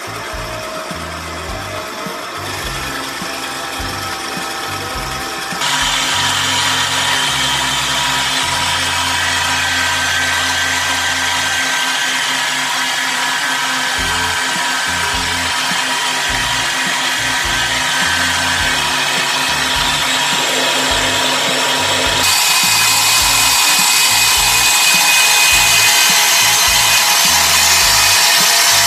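Electric stand mixer running steadily, its beater turning through cake batter in a stainless steel bowl. The motor gets louder in two steps, about six seconds in and again about twenty-two seconds in.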